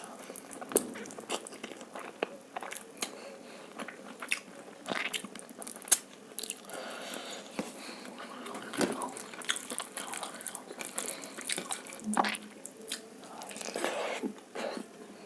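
Close-miked chewing and biting of egg fried rice and chilli chicken: many sharp, irregular mouth clicks and crunches.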